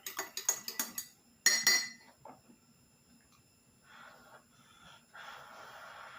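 Spoon clinking quickly against a cup as turmeric tea is stirred, about six or seven clinks a second for the first second, then one louder clink. Near the end, two soft breathy rushes.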